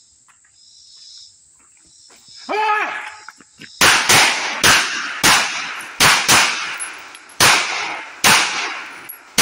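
Smith & Wesson 3953 double-action-only 9mm pistol fired about eight times, each shot a sharp crack with a short echo. The first shots come about a third to half a second apart and the pace slows to about a second apart toward the end.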